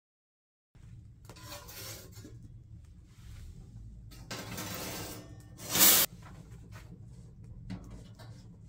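Metal scraping and clanking on a small wood stove, starting about a second in: a poker rattles inside the firebox, with one short loud scrape near the middle. Near the end come a few light metal knocks as a stovepipe section is set on top.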